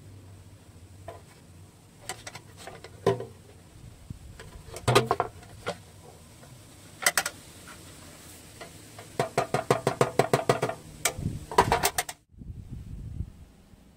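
A thin 0.7 mm aluminium baking pan being handled: scattered sharp knocks and clinks of metal as it is turned over in the hands, a quick run of rattling clicks about two-thirds of the way in, and a loud clatter near the end as it is set down on the tile floor.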